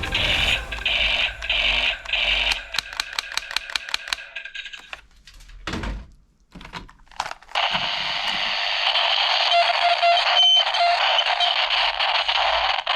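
Toy guns' electronic sound effects: a pulsing high beeping tone with rapid clicking for about five seconds, a few single clicks in a short pause, then a steady harsh hissing firing sound from about eight seconds to the end.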